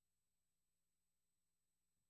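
Near silence: faint steady hiss with a thin high tone, the idle noise of the audio feed.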